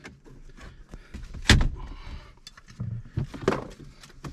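Plastic retaining clips of a 2020 Jeep Gladiator's center dash trim panel snapping loose as the panel is pried off: a sharp crack about a second and a half in, another about three and a half seconds in, with smaller clicks and plastic creaking between. It sounds horrible, but it is only the clips releasing.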